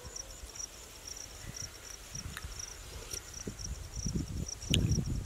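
Field insects chirping: a steady, evenly pulsed high chirp that repeats several times a second, over a low rumble. A single sharp click comes near the end.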